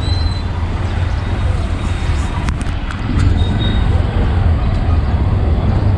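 Busy street ambience: a steady low rumble of traffic with indistinct voices, and a sharp click about two and a half seconds in.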